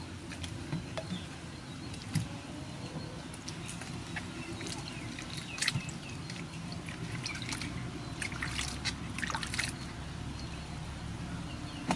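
Water sloshing, dripping and splashing in a metal basin as hands wash leafy greens, long beans and a green papaya, with scattered small splashes and a steady low hum underneath.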